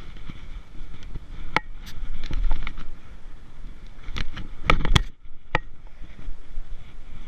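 Scattered sharp knocks, clicks and scrapes, several close together about five seconds in, over a low rumble of wind on the microphone.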